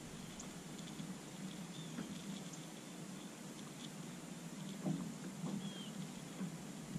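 Quiet open-air ambience with a few faint knocks and clicks from gear being handled in the boat, and a couple of faint high chirps.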